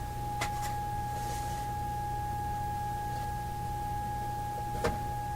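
A steady, single-pitched test tone from an audio signal generator plays through a loudspeaker, over a low hum. A few light clicks come about half a second in and again near the end.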